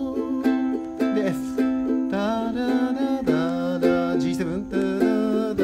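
Ukulele strummed in steady chord strokes through a C–Am–F–G7 progression. A man sings a melody over it from about two seconds in until near the end.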